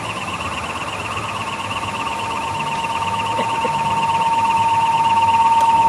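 Electronic sound of a laser and light show: a high, fast-warbling alarm-like tone with a steady lower drone that swells louder through the second half.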